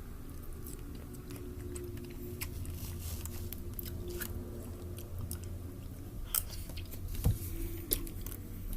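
Close-up chewing and mouth sounds of someone eating soft dragon fruit flesh, over a low steady hum, with a few sharper clicks about six to eight seconds in.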